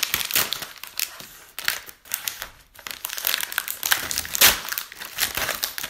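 Crinkly snack-chip packet being handled and torn open, in irregular bursts of crackling with a short lull about two seconds in and the loudest rustle about four seconds in.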